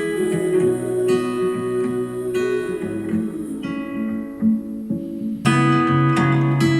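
Acoustic-guitar instrumental music played back through Audioengine A2+ powered bookshelf speakers. The sound thins out, then cuts back in suddenly and fuller about five seconds in, as the test switches to driving the A2+ speakers from the Kanto YU2's amplifier.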